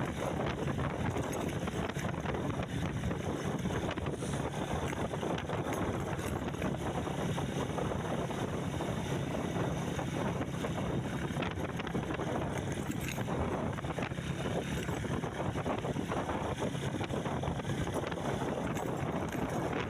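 A vehicle running steadily with a constant low drone, and wind buffeting the microphone throughout.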